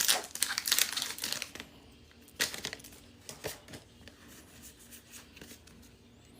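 Foil wrapper of a Pokémon TCG booster pack crinkling and tearing as it is ripped open: a dense crackle for the first second and a half, then a couple of shorter crinkles and faint rustling.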